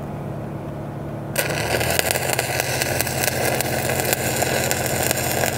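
A stick-welding arc is struck with a fresh 7018 low-hydrogen rod about a second and a half in. It then burns with a steady crackle. Under it, the engine of an engine-driven welder runs steadily.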